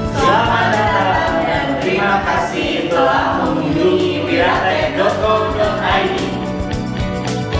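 Background music in which a choir of voices sings a wordless, swelling line over sustained chords.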